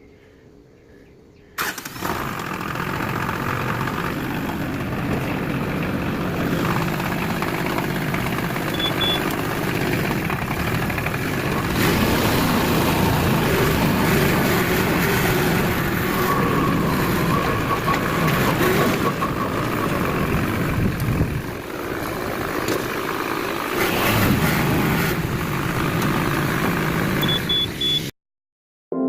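Pressure washer running with a steady engine drone under a broad hiss of spray. It starts abruptly about a second and a half in and cuts off sharply near the end.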